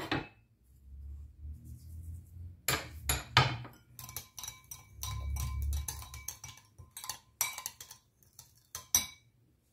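Metal spoon stirring a liquid marinade in a cut-glass bowl, clinking against the glass over and over with a faint ring. The clinks begin about three seconds in and run until near the end.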